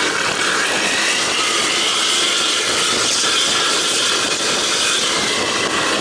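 A bus's loud exhaust at highway speed, a steady jet-like rushing sound.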